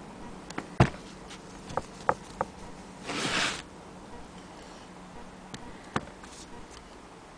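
Antique Willcox & Gibbs sewing machine handled and turned by hand: scattered sharp clicks and knocks of its metal parts, the loudest about a second in. A brief whirring rustle about three seconds in as the handwheel is spun.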